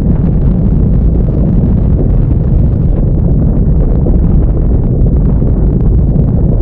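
Tornado sound effect: a loud, steady, low rumbling wind noise with no breaks or distinct events.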